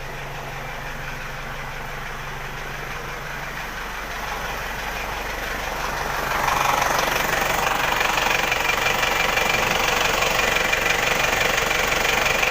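Isuzu Highlander's engine running at idle, then held at a higher, louder speed from about six seconds in, as its alternator's charging voltage is checked under raised revs.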